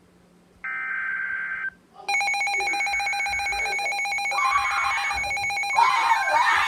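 A telephone line tone sounds for about a second, then a telephone bell starts ringing about two seconds in and rings on without a break, with some noise mixed in near the end.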